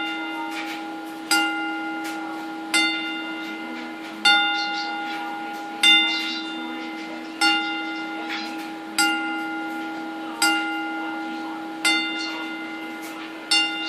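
A single bell tolled slowly, about nine strikes at an even pace of one every second and a half, each ringing on until the next: a memorial toll for the dead. Heard through a television's speaker.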